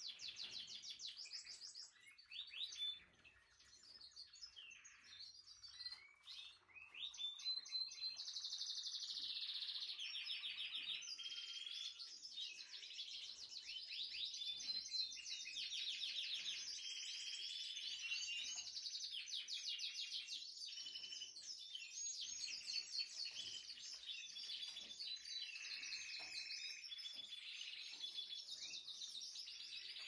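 Several canaries singing together in rapid rolling trills and chirps. The song is thin and patchy for the first few seconds, then fills into a continuous chorus from about eight seconds in.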